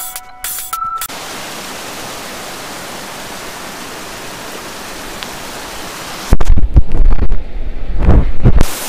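Electronic music cuts off about a second in, giving way to a steady hiss of noise like static or rushing air. About six seconds in it breaks into loud, deep rumbling booms that run on to the end.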